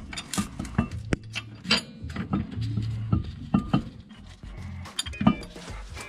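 Irregular metallic clinks and clicks of brake hardware being handled and fitted: a caliper, its bracket and bolts. Background music with a low bass line plays underneath.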